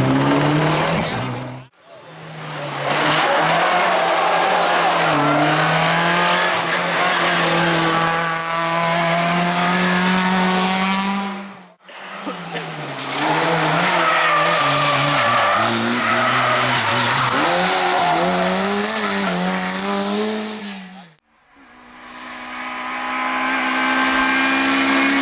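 Racing car engines at high revs in three separate clips, the engine note rising, falling and wavering with gear changes and throttle, with some tyre noise. The sound cuts out briefly between the clips, about two, twelve and twenty-one seconds in.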